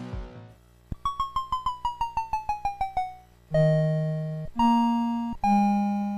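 Closing music on an electronic keyboard: a quick run of about a dozen notes falling in pitch, then three held notes, the last one left to fade out.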